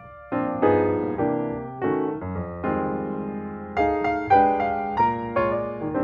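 Background piano music, with notes and chords struck in quick succession after a brief pause at the start.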